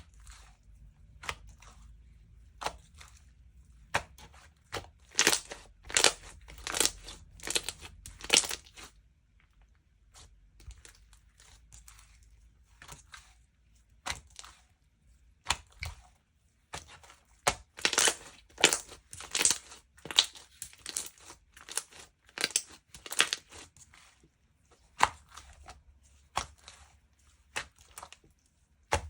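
Soft cream-textured slime being squished and stretched by hand, giving runs of sticky clicks and pops. The clicks come thickest in two spells, a few seconds in and again around the middle, and are sparser in between.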